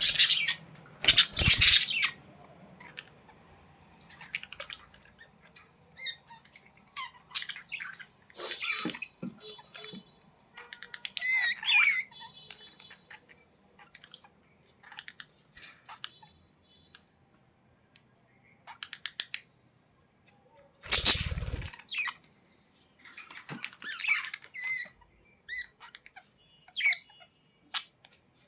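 Budgerigars chirping, warbling and squawking in short scattered bursts with pauses between, with two louder, rougher noisy bursts, one about a second in and one about two-thirds of the way through.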